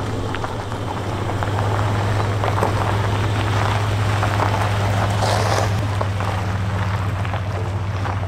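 A Ford Econoline van driving slowly on gravel: a steady engine hum with tyres crackling over loose stones. The sound swells briefly as the van passes closest, a little over halfway through.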